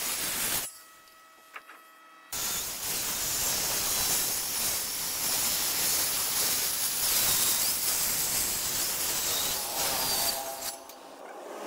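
Makita handheld circular saw cutting lengthwise along a wooden slab: a loud, steady hiss of the blade through the wood. It breaks off for about a second and a half near the start, then drops away near the end.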